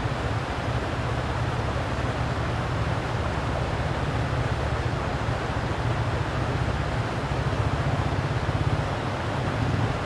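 Steady rush of flowing stream water, heavy in low rumble.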